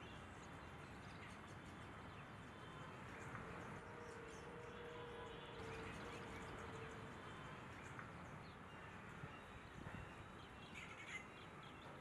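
Faint outdoor ambience with scattered distant bird calls and high chirps, a few calls clustering near the end.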